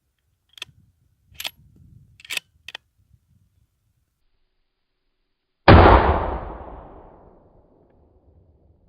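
A few metallic clicks of a bolt-action rifle being worked, then a single loud gunshot from a Savage Axis XP in .308 Winchester about six seconds in, its report dying away over about two seconds.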